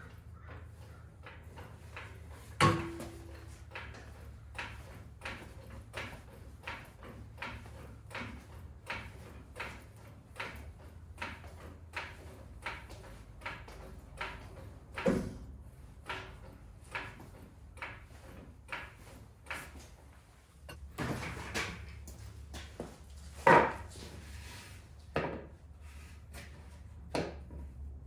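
Sparse percussive background music: short knock-like hits on an even beat of about one every 0.6 seconds over a low hum, with a few louder accents.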